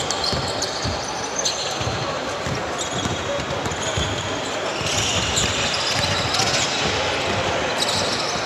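Basketball bouncing on a court, with several short high squeaks.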